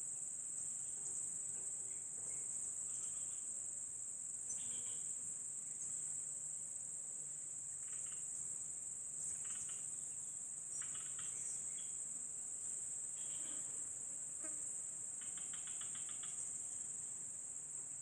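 Steady high-pitched insect drone, like crickets or cicadas, with a few short chirps scattered through it.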